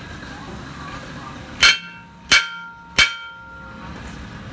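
Three sharp strikes on a steel tractor wheel plate, a little under a second apart, each leaving the plate ringing with a metallic tone that dies away.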